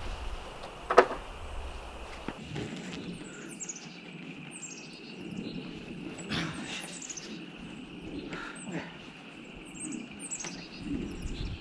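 Birds chirping in a string of quick, high, down-slurred notes over outdoor background noise, with a single sharp knock about a second in.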